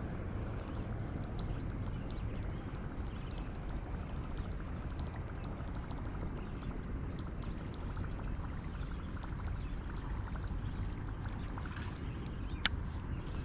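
Steady rush of flowing river water, with a single sharp click near the end.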